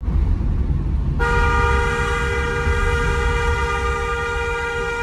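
Car horn held in one long, steady blast starting about a second in and lasting over four seconds, over the low rumble of the moving car, heard from inside the cabin.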